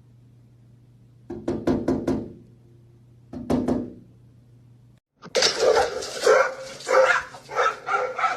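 Dog barking: a quick cluster of barks about a second in and another shortly after. After a short break, a run of loud repeated barks, about two to three a second.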